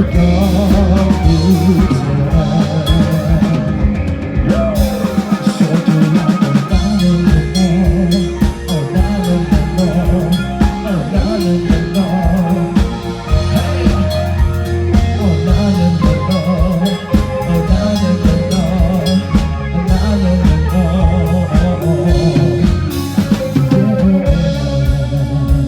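Live band playing a rock song on drum kit, bass and guitar. The bass drops out for about two seconds, around five seconds in, then comes back in.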